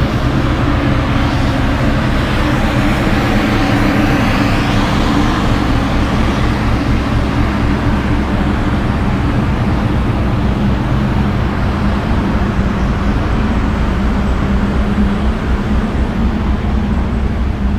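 Steady low drone of a ferry's engines and onboard machinery, several hum tones held under a continuous rushing of air.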